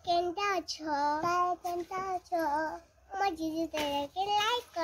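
A young girl singing a tune in short phrases, with held notes and brief breaks between them.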